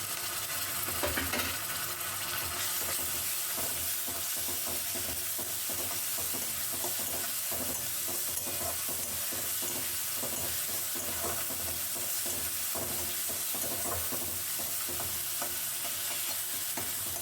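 Chopped onion with green chilli paste and garlic paste frying in hot oil, sizzling steadily, while a spatula stirs and scrapes the pan with many small irregular clicks.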